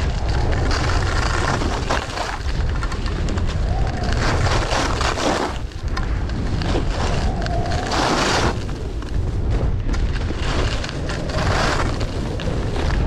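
Wind buffeting a moving camera's microphone in a heavy, steady rumble, with a rushing scrape every few seconds from skis turning on snow.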